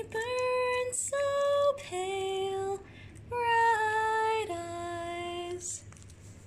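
A solo voice singing a slow ballad in about five long held notes, with a short pause in the middle and the song ending about a second before the end.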